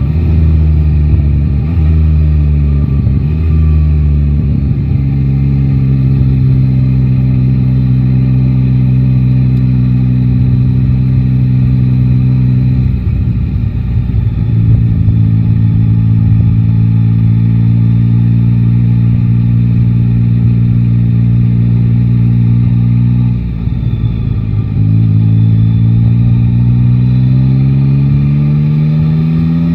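Yamaha Tracer 9 GT's three-cylinder engine heard from the rider's seat, pulling up through the gears at the start and then cruising at steady revs. The throttle closes for a gearchange about halfway, and again with a short dip in revs later on. It accelerates again near the end, the engine note rising.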